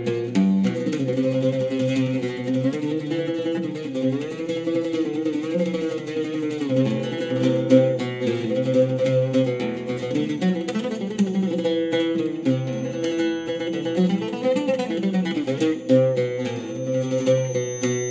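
Oud played with a pick in an instrumental interlude between sung verses: a melody of quick plucked notes over sustained low notes.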